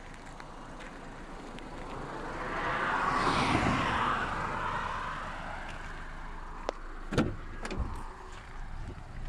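A road vehicle passing by, its noise swelling and then fading over a few seconds, followed by a few sharp clicks near the end.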